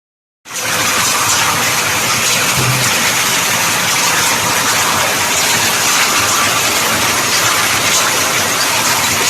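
Heavy hail and rain pouring down in a violent storm: a loud, steady, dense hiss that starts suddenly about half a second in.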